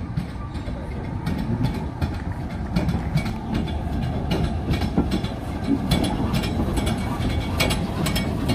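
LMS 8F 2-8-0 steam locomotive moving slowly at walking pace: a low rumble with irregular clanks and clicks from its wheels and motion, growing louder as it draws near.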